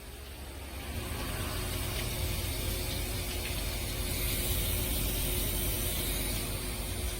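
Water spraying from a hose onto a car's panoramic sunroof during a leak test, a steady hiss that builds over the first second and then holds.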